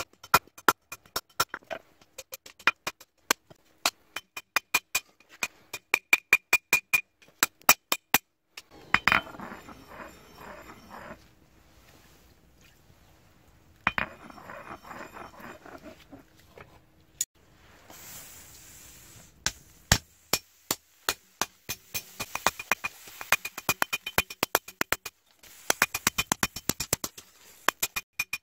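Hand hammer striking steel forged from old bearings on an anvil: runs of quick, sharp, ringing clinks. Several seconds of fainter noise break up the runs in the middle.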